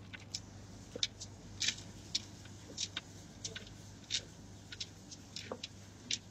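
Quiet gulping swallows while drinking from a large glass jar, heard as soft, irregular clicks about twice a second.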